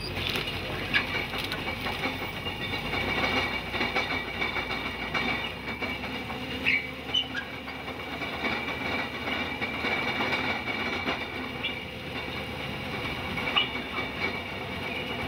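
REMU screening bucket on a wheel loader running, clattering and rattling as wood chips sift through it and pour out, with a steady high whine and scattered sharp clicks.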